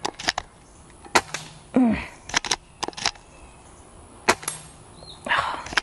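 Gamo Arrow .22 PCP air rifle being shot offhand at steel knock-down targets: a string of sharp cracks and clicks, several in quick pairs, from the shots, the bolt and pellets striking the targets.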